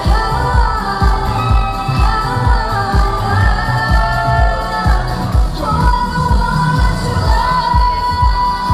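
K-pop dance song performed live: women's voices singing over a backing track with a steady kick-drum beat, played through a concert hall's PA. About halfway through, one note is held long.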